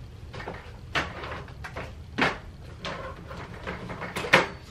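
Plastic bottles and containers being set down and moved about on a metal wire shelf: a handful of separate knocks and clatters, the loudest near the end.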